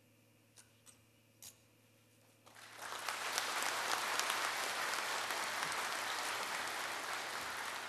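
Audience applause, starting about two and a half seconds in after a few faint clicks and fading near the end.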